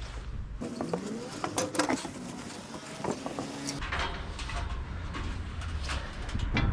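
Climbing on steel tube scaffolding: scattered knocks and clanks of hands and feet on the tubes and boards, with a few short sliding tones in the middle. Wind rumbles on the microphone, dropping away about half a second in and returning near the four-second mark.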